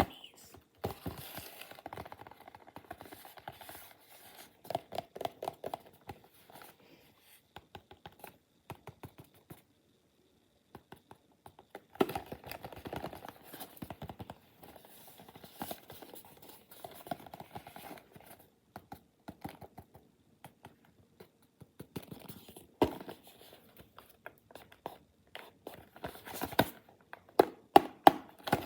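Hands handling and opening packaging: irregular scratching, scraping and tapping in bursts of small clicks, with a pause about ten seconds in.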